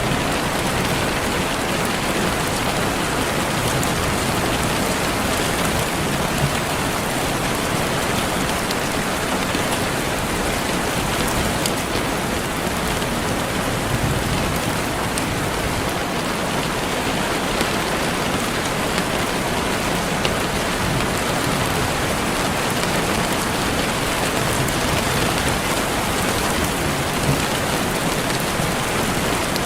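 Steady rain falling, an even hiss of rain with occasional individual drop ticks standing out.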